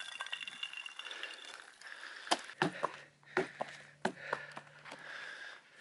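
Footsteps on river ice, with sharp clicks and snaps of the ice underfoot scattered through the second half. A faint low hum starts about halfway through.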